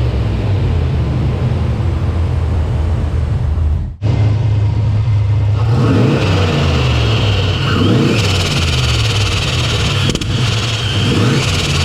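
Turbocharged car engine, which the owner says runs a bit rich, running steadily and then revved in repeated blips, rising and falling. A high thin whine joins in about halfway through.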